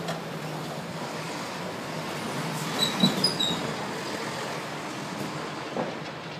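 Steady outdoor noise of street traffic and demolition machinery, with a low hum underneath. About three seconds in comes a knock with a few short high squeaks, and a smaller knock near the end.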